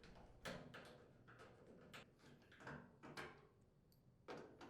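Faint, scattered clicks and scrapes of a screwdriver backing screws out of the dryer's sheet-metal support bracket, about six short sounds.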